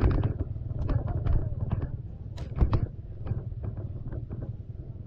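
Dirt bike engine running at low revs over a rough, rocky trail. A steady low drone runs under repeated sharp knocks and clatter from the bike and the rocks.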